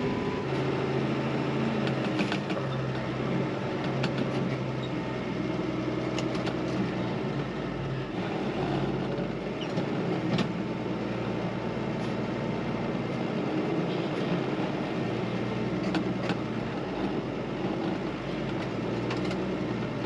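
John Deere tractor's diesel engine running steadily under load as the tractor drives, heard from inside the cab, with a few scattered clanks and rattles.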